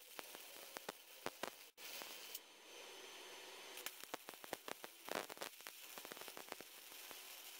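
Flux-core arc welding with 0.030 flux-core wire on 14 gauge steel from a Harbor Freight Titanium Multiprocess 200 welder: a steady crackling hiss broken by sharp, irregular pops of spatter. The arc cuts out briefly a little under two seconds in, then picks up again.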